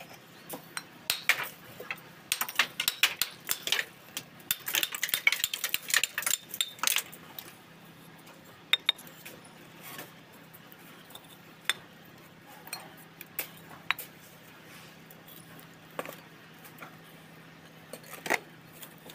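Steel mason's trowel scraping and tapping on bricks and wet cement mortar while bricks are laid: a quick run of clinks and scrapes for the first several seconds, then scattered single taps.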